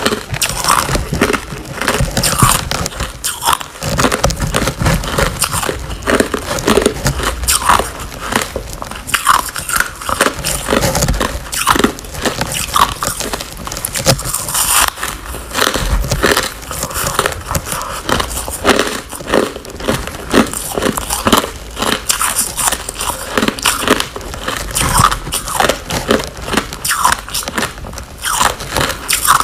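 Biting and chewing a frosty chunk of ice: an irregular, continuous run of sharp crunches and crackles as the ice is bitten off and ground between the teeth.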